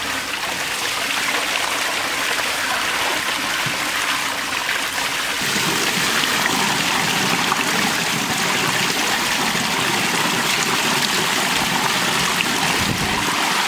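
Water pouring steadily from a concrete outlet into a tank and splashing over a man's head and shoulders as he bathes under it; the splashing grows fuller and deeper about five seconds in.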